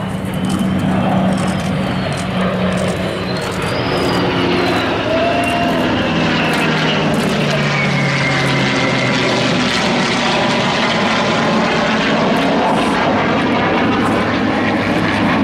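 Blue Angels F/A-18 Hornet jets flying past in formation: loud, steady jet engine noise, with tones that slowly fall in pitch around the middle as the jets go by.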